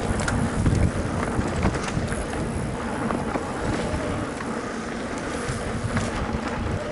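Mountain bike rolling over a dirt trail: a steady rumble of tyres on the ground with small rattles and knocks from the bike, and wind on the microphone.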